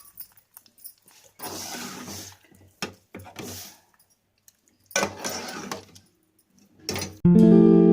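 A spoon stirring and scraping in a cooking pot, in several short bursts with brief pauses between them. Guitar music starts abruptly near the end and is the loudest sound.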